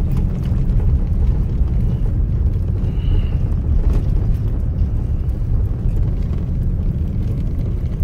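Interior noise of a GMC Yukon Denali driving on a snow-covered road: a steady low rumble of engine and tyres.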